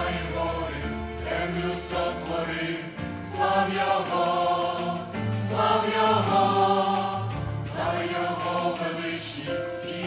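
Mixed church choir of men's and women's voices singing a Ukrainian hymn in harmony, swelling louder through the middle.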